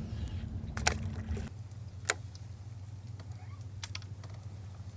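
A boat motor's steady low hum, which drops and changes about a second and a half in, with a few sharp clicks and taps over it.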